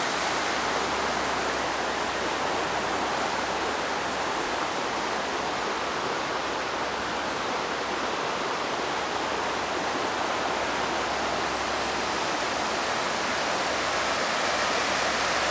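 Shallow river rushing over a rocky bed through riffles, a steady even rush of water.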